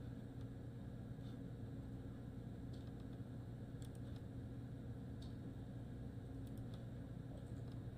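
Low-level room tone: a steady low hum with a scattering of faint clicks.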